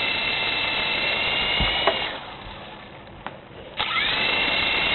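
Small electric motors of a 3-channel mini RC helicopter whining as the rotors spin, then throttled down about two seconds in and spun up again with a rising whine near the end. The rotors turn but give no lift, which the owner puts down to a missing piece linking the fly bar.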